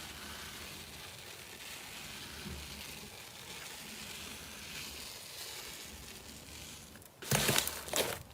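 Slime being handled: a soft, steady hiss, then about seven seconds in, loud irregular crackling and crinkling.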